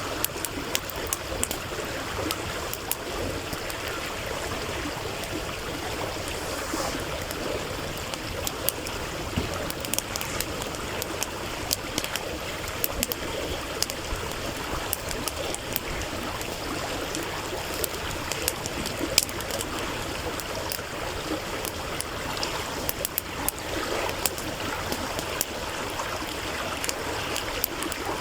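A stream running steadily, with a wood campfire crackling over it in many sharp irregular pops, one louder pop about two-thirds of the way through.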